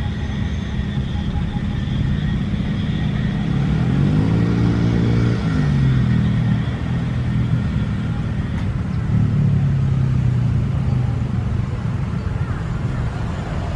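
Steady low engine rumble, with a pitched engine note that rises and then falls about four to six seconds in, like a vehicle passing close by.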